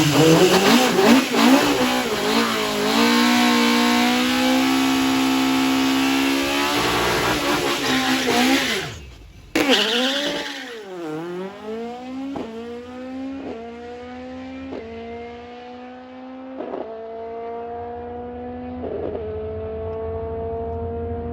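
Ford Escort Mk2 drag car with a Millington Diamond four-cylinder race engine. First it is held at high, steady revs with tyre squeal, as in a burnout. After a break about nine seconds in, it launches hard, revving up through about five gear changes and fading as it pulls away.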